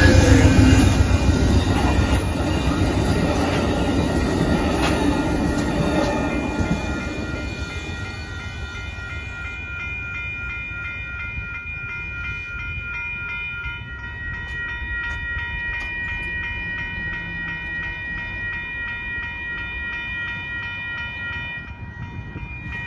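Amtrak passenger train passing over a road crossing, its loud rumble and wheel noise fading away over the first seven seconds or so. Behind it the crossing's warning bells ring steadily and evenly, and they are left alone once the train has gone.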